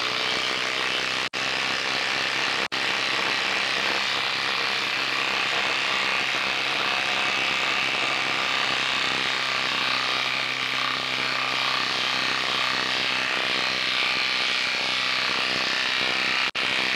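Bosch Freak 18 V cordless impact driver hammering steadily under load as it drives a 6-inch screw into a wooden log, with a few very short breaks in the hammering: two near the start and one near the end. The impacts sound like metal hitting metal, which the user puts down to either a lack of oil or just the design.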